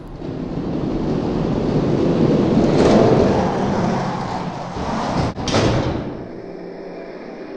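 Two diecast toy monster trucks rolling down a plastic drag track, a steady rumble from their rubber wheels that builds and then eases. The rumble is broken by a brief cut and a short louder moment about five seconds in, as the trucks reach the finish gate.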